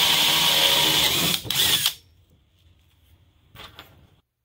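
DeWalt cordless drill driving a hole saw through plywood. It runs at speed, briefly dips and picks up again, then stops about two seconds in.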